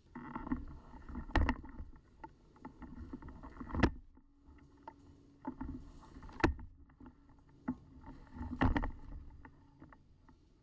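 Close rustling and scraping of gear being handled and moved, with four sharp knocks spread through it.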